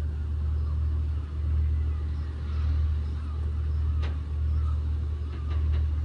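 Wind buffeting the microphone: a steady, loud low rumble that swells and dips, with a few faint clicks near the middle and toward the end.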